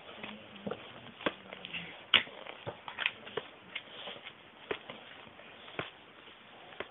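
Paperback picture book being handled and its pages turned: irregular sharp clicks and taps of paper and card, spaced a fraction of a second to a second apart.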